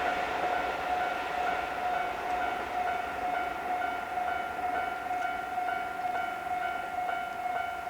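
Japanese level-crossing alarm bell ringing with its steady repeating electronic clang, over the noise of a passing train that dies away after the first couple of seconds.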